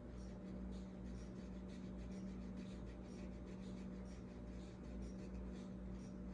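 Watercolor brush making quick, short strokes and dabs on paper, several a second, over a steady low hum.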